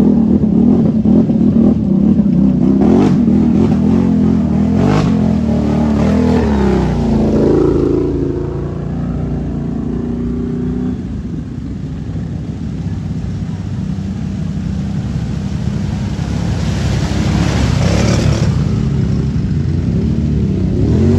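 ATV engines revving as the quads drive through deep muddy water. The engine note is loudest for the first several seconds, falls back about eight seconds in, and builds again toward the end.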